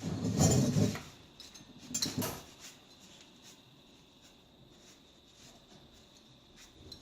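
CPU cooler heatsink being handled and fitted: a clatter and rustle of metal and plastic parts in the first second, another shorter one about two seconds in, then faint scattered clicks.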